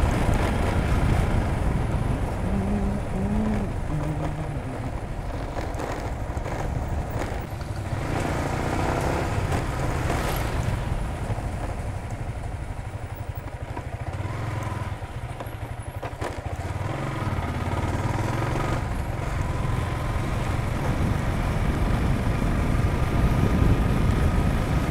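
Yamaha motor scooter's engine running while riding, with wind and road noise on the handlebar-mounted camera's microphone; loudness dips a couple of times along the way.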